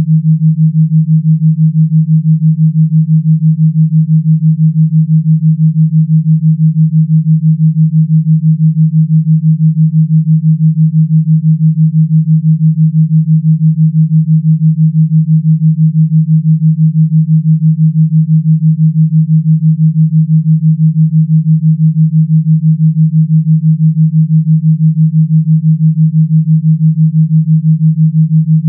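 A steady, electronically generated pure tone, low in pitch, pulsing evenly and fast in loudness.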